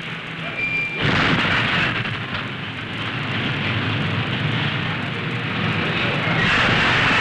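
Rumble of a deep underwater nuclear explosion: a loud, noisy rumble that starts suddenly about a second in and grows louder near the end.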